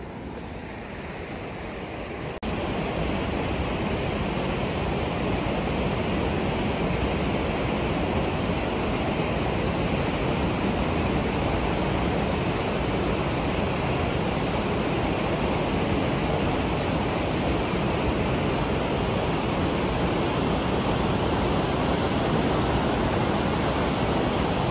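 A fast mountain river rushing steadily, a dense even noise of water that gets abruptly louder about two seconds in.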